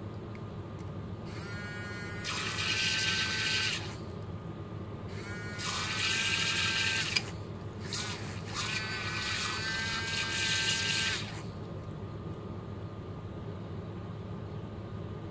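Badger battery-powered paint mixer's small motor whirring in three runs of two to three seconds each, spinning its stirring shaft in a glass of water with a steady high whine. A single sharp click comes just after the second run, over a steady low hum.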